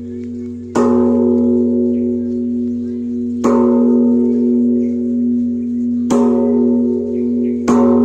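Large hanging Buddhist temple bell struck four times with a hand-held wooden striker, each strike a sharp clang that sets off a long, steady ring carrying on between blows. The last two strikes come closer together than the first ones.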